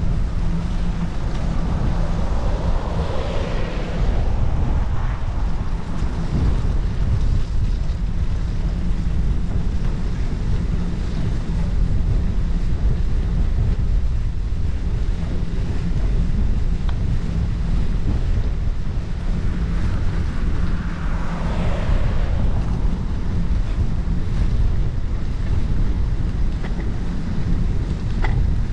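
Wind buffeting the microphone of a bicycle-mounted action camera while riding, with a steady low rumble of air and tyre noise. Two brief swells of louder noise come about three seconds and twenty-one seconds in.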